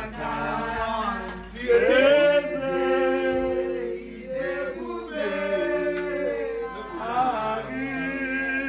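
Voices singing a worship song together, unaccompanied, with long held notes that slide between pitches.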